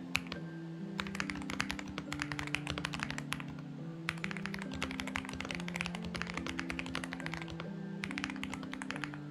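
Typing on a Xinmeng X98 mechanical keyboard: quick runs of clacking keystrokes with short pauses, sparse in the first second. Soft background music with sustained low chords plays underneath.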